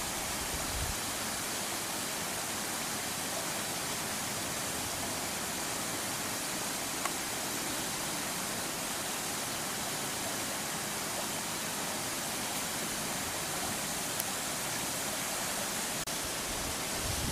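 A steady, even rushing noise that does not change, with a couple of faint ticks.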